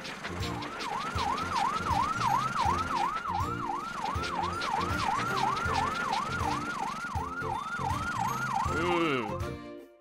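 Cartoon fire engine siren sounding in quick repeated rising sweeps, a little under three a second, then winding down with a falling tone about nine seconds in.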